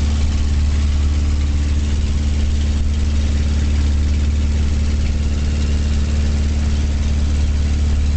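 Single-engine light aircraft's piston engine and propeller droning steadily in flight, heard from inside the small cockpit, with a deep, even hum.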